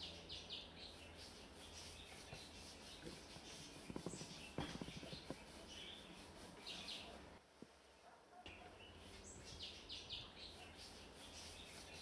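Near silence: quiet room tone with faint bird chirps now and then, and a few light taps around the middle.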